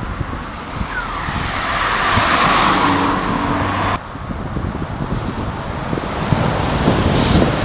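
Fast traffic passing on a dual carriageway: a vehicle's tyre rush swells up over the first few seconds and cuts off abruptly about four seconds in, then a lorry's rush builds as it passes near the end. Wind buffets the microphone throughout.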